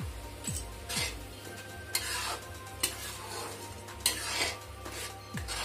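Steel ladle stirring and scraping thick tomato-onion masala in an aluminium kadai, metal scraping on metal several times, the loudest strokes about two and four seconds in, while the masala sizzles softly.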